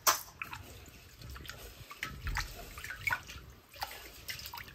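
Rice being washed by hand in a pot of water: irregular sloshing and dripping with small clicks.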